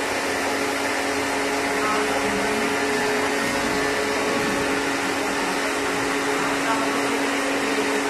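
Electric pressure washer running steadily, its motor humming under the hiss of the water jet from the spray gun as it washes the air conditioner's indoor coil.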